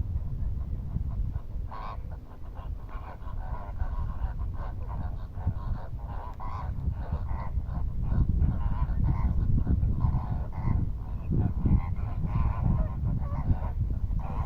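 Geese honking repeatedly in a flock, short calls following one another, over a steady low rumble.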